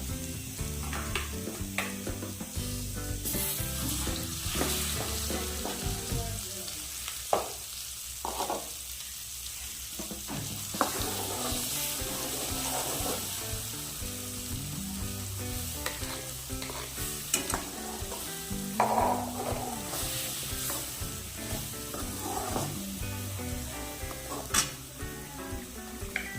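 Chicken sizzling as it fries in a pan, a steady hiss, with a spoon scraping and clacking against the pan now and then as it is stirred.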